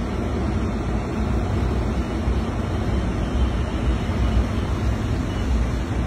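Steady road and engine noise inside the cab of a moving pickup truck: a low rumble with a hiss above it.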